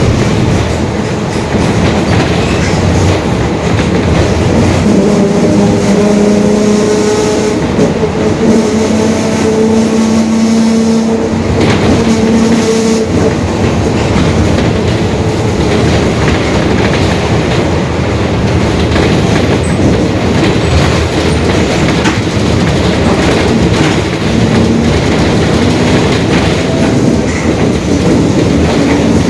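Cabin sound of a Mercedes-Benz OF-1721 Bluetec 5 city bus under way: the diesel running, with body rattle and road noise. A steady droning tone from the growling differential comes through from about five seconds in to about thirteen.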